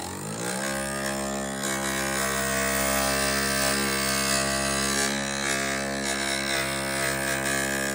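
Electric stained-glass grinder running steadily, its motor hum rising in pitch near the start as it comes up to speed, with the gritty rasp of a glass edge being ground against the spinning bit.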